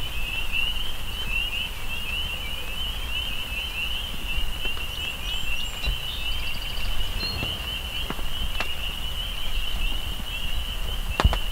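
A continuous high-pitched chorus of rapid chirping animal calls over a low rumble of wind or handling noise, with a sharp click near the end.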